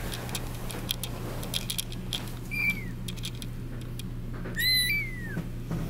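Very young Persian kittens mewing: two thin, high-pitched mews, one about two and a half seconds in and a longer one, falling at its end, near the end. Faint scattered clicks and rustling, and a steady low hum underneath.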